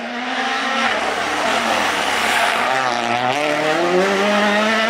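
Rally car engine approaching at speed and growing louder. The revs drop about a second in, then climb again in steps near the end as the car accelerates.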